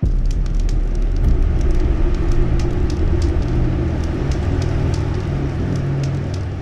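Tortum Waterfall in heavy flow: a loud, steady rush of falling water with a deep rumble.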